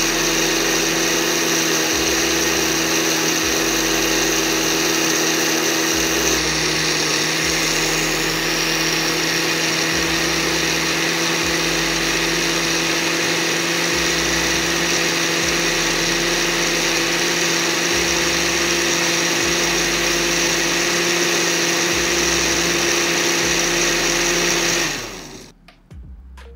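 Electric blender running steadily at speed, its blade churning a liquid chocolate milkshake. About 25 seconds in the motor switches off and spins down, its pitch falling.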